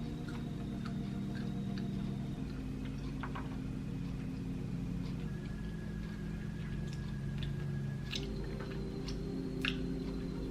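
Sparse clicks and wet smacks of someone eating chicken wings, a few seconds apart. Under them runs a steady low hum with held tones that change every few seconds.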